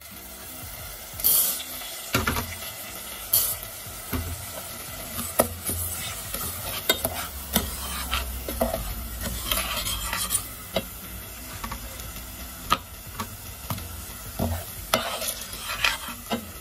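Metal spoon stirring orzo in a stainless steel pot, scraping and clinking irregularly against the pot, over a steady sizzle of oil as the orzo toasts.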